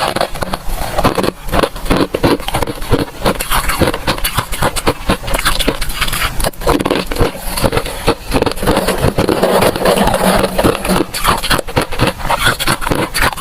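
Crunching of freezer frost close to the microphone: a dense, continuous run of crisp, crackling cracks.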